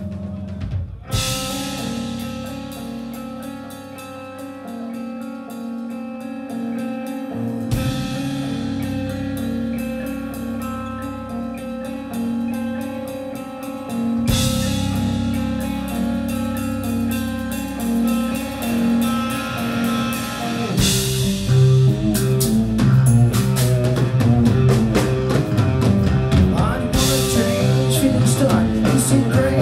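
Live rock band playing an instrumental passage on electric guitar, bass and drum kit. After a brief drop right at the start the music comes back in, and about twenty seconds in the band plays louder and the drumming grows busier.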